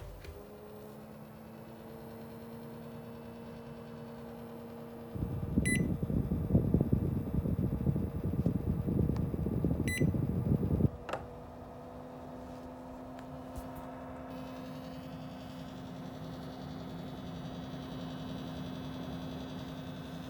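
Hitachi RAS-AJ22J wall-mounted room air conditioner running with a steady hum. About five seconds in, a much louder, rough, fluctuating noise sets in for about six seconds, with a short beep near its start and another near its end, and then the steady hum returns. This unit had an abnormal 'myu-myu' noise from installation, which went away once the heat exchanger was lifted slightly and set back in place.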